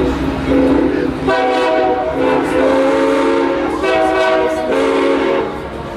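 Locomotive air horn sounding a series of blasts, several in a row of varying length, each a chord of several steady tones.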